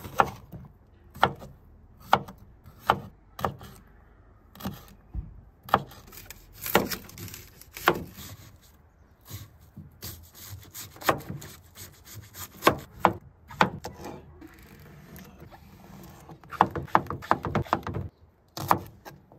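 Chef's knife slicing bell pepper, onion and zucchini on a plastic cutting board: sharp taps of the blade striking the board at uneven intervals, with a quick run of chops near the end.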